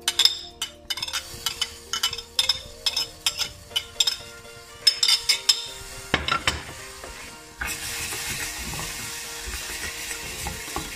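A metal spoon clinking and scraping against a plate and a stainless steel saucepan as diced cherry tomatoes are tipped in, a quick string of clinks. From about seven and a half seconds in, a steady sizzle of the tomatoes and toasted rice frying in oil as the pan is stirred.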